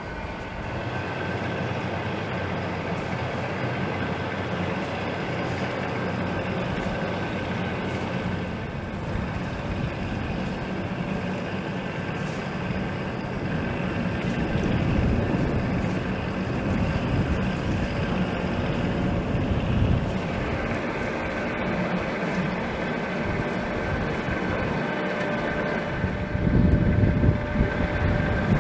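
Canal tour boat's engine running steadily as it motors out, a low rumble with a steady whine over it, growing louder near the end as the boat passes close.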